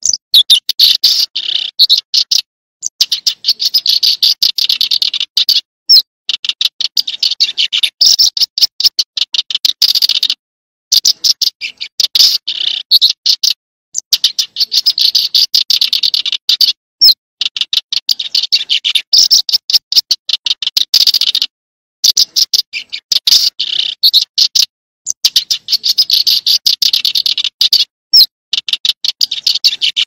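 A small songbird's high-pitched, rapid buzzy trill, sung in repeated phrases of about two to three seconds with short silent gaps between them.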